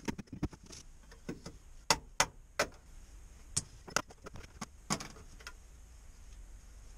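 Irregular sharp taps and knocks of a hand tool against the sheet-metal boot floor of a Subaru Impreza as old sound-deadening material is chipped off.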